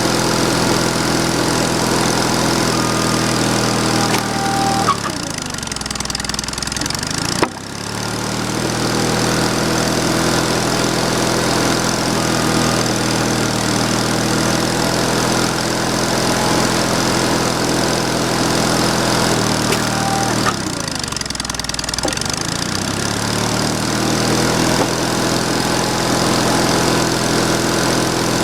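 Sawmill engine running steadily, its pitch sagging and recovering twice for a couple of seconds each time, with a sharp click during the first dip.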